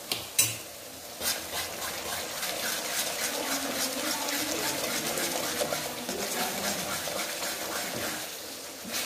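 Metal spatula stirring thick tomato masala gravy in a metal kadai, with repeated short scrapes against the pan and wet, sloppy sounds from the gravy; a sharp clink about half a second in.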